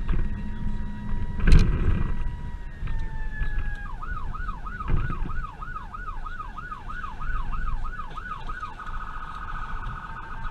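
Responding emergency vehicle's electronic siren heard from inside the vehicle: a slow wail, switched about four seconds in to a fast yelp at about three swoops a second, then near the end to a rapid warble. Road rumble runs underneath, with a loud thump about a second and a half in.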